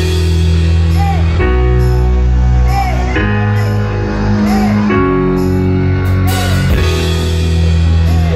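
Live rock band of bass guitar, keyboard, electric guitar and drums playing the opening of a song: heavy low chords held and changing every second or two under a repeating higher figure.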